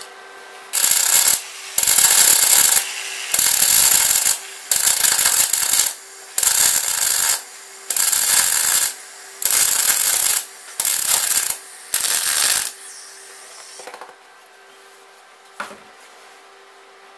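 MIG welding arc crackling in about nine short bursts, a weld laid in stitches on a steel engine-mount bracket, stopping about three quarters of the way through.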